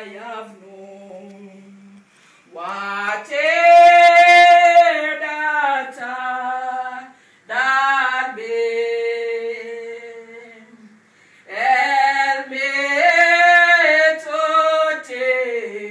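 A voice singing a slow hymn unaccompanied, in three long drawn-out phrases with short pauses between them.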